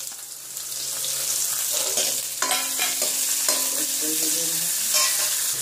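Sliced onions sizzling in hot oil in a steel kadhai, stirred with a steel ladle that scrapes and clinks against the pan a few times.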